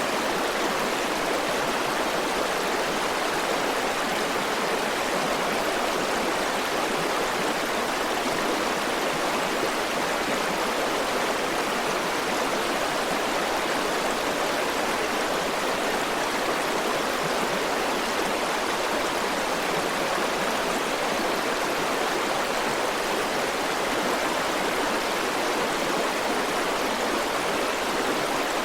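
A river flowing, a steady rushing of water with no breaks or separate splashes.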